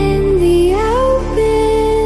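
Background music: a slow melody of long held notes that glide up and down between pitches, over a steady low drone.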